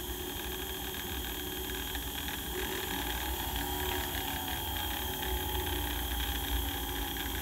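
Small electric hobby motors of a laser projector whirring as they spin its mirror mounts. A faint pitch rises and falls in the middle as the motor speed knobs are turned.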